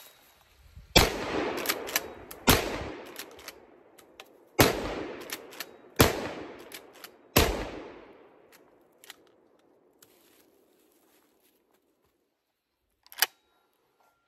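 Black Aces Tactical lever-action 12-gauge shotgun fired five times, one and a half to two seconds apart, with high-brass 2¾-inch shells; each blast trails off in echo. Lighter metallic clicks come between the shots as the lever is worked, and a single sharp click near the end.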